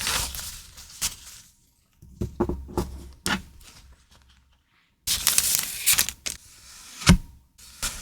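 Journaling stationery being handled: paper and plastic packaging rustling and crinkling in a few short bursts, with sharp taps and clicks.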